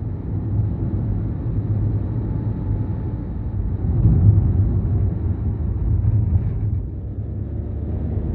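Steady low rumble of a car's engine and tyres while driving, swelling a little about four seconds in.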